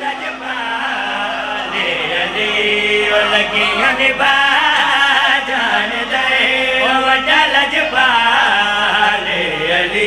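Several men's voices singing and chanting a Punjabi devotional qasida refrain together, amplified through microphones.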